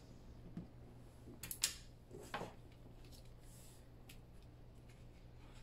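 A few faint, brief rustles and taps as a clear Duralar plastic sheet and a paper pocket are handled and pressed on a cutting mat, clustered about one and a half to two and a half seconds in, over a faint low hum.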